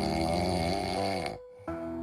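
Music with a warbling, wavering voice-like tone over held notes; it drops out briefly about a second and a half in, then steady tones resume.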